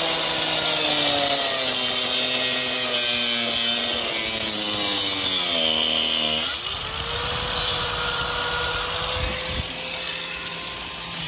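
Handheld electric cutting tool with a round disc running and cutting through the plastic inlet pipe of a livewell aerator pump housing. Its motor pitch sinks slowly as it bogs down under the cut, climbs back quickly about six and a half seconds in, and then runs steady.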